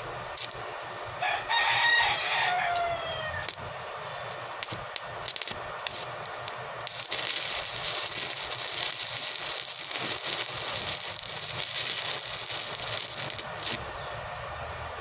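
A rooster crows once, about a second in. From about seven seconds in, an electric arc welder runs for about six and a half seconds with a steady crackling hiss, then stops; scattered sharp ticks come before it.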